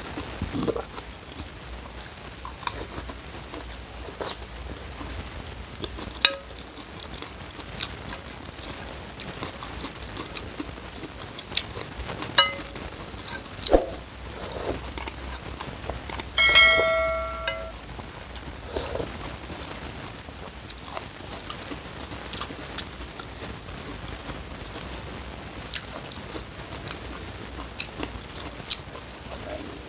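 Close-up eating sounds: chewing and slurping noodles and spicy soup broth, with scattered clicks of a metal spoon and fork against a ceramic bowl. About halfway through comes a short, high-pitched sound lasting about a second, the loudest moment.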